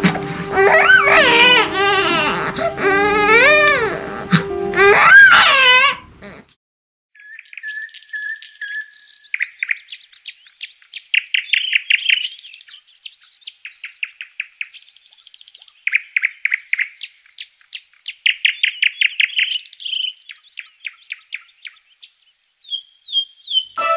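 A newborn baby crying in loud, wailing cries that stop abruptly about six seconds in. Then songbirds sing, in short bursts of rapid trills repeated over and over.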